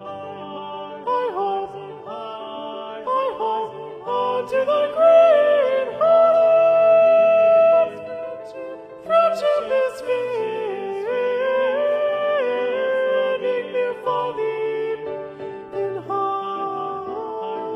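Music: a single voice singing a slow melody of long held notes with slides between them. One note is held for about two seconds near the middle.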